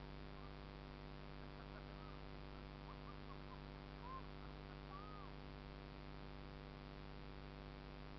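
Steady electrical hum with a stack of even tones, and over it a few faint bird chirps and short whistled glides between about one and a half and five seconds in.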